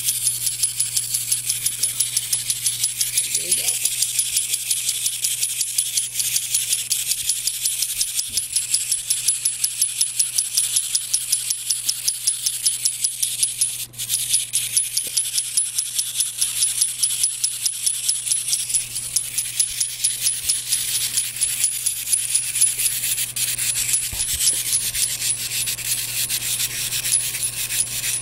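Clockwork wind-up walking toy running on its wound spring: a rapid, even clicking of its gear mechanism as it walks and claps.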